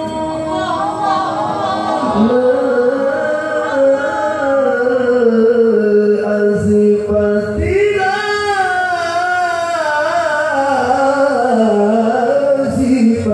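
Quran recitation (tilawah) by a male qari: one voice drawing out a long, ornamented melodic phrase with held notes and runs. The line drops lower about two seconds in and climbs again near eight seconds.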